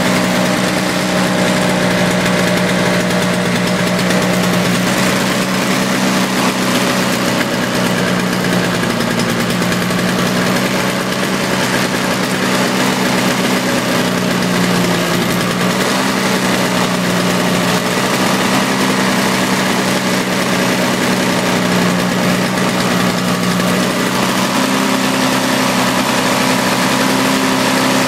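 Toro CCR 2450 snowblower's small two-stroke engine running steadily, its pitch wavering slightly a few times. It is running smoky, pouring out white exhaust smoke, on old fuel-oil mix after a cold start.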